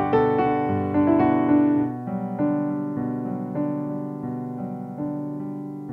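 Gentle background piano music: struck notes and chords ringing and decaying, turning softer about two seconds in.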